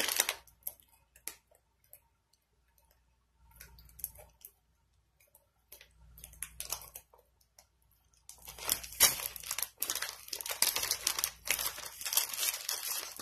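Plastic pepperoni packet crinkling and tearing as it is struggled open: a brief crinkle at the start, a few seconds of near quiet with small rustles, then steady dense crinkling from about eight seconds in.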